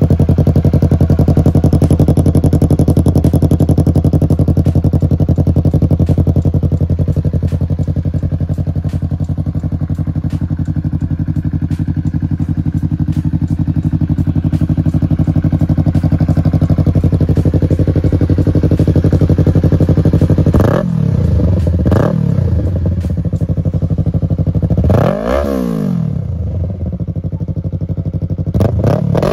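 2019 Yamaha R3's parallel-twin engine idling steadily through an M4 Street Slayer slip-on exhaust with the dB killer removed, then revved in short throttle blips: two quick ones about two-thirds of the way in, a bigger one a few seconds later, and another near the end.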